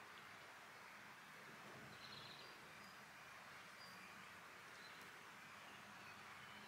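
Near silence: faint outdoor background hiss with a few faint, short, distant bird chirps, the clearest about two seconds in.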